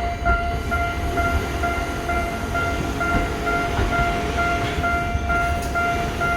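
Level-crossing warning bell ringing in a steady repeating beat, about three strokes a second, over the low rumble of a Tokyo Metro Ginza Line train on the tracks.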